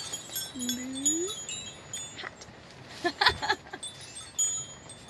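Small metal chimes tinkling on and off, with a short rising voice-like sound about a second in and a cluster of knocks and rustles just after three seconds.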